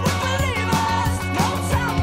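Background rock-pop music with a steady drum beat, bass and a gliding melody line.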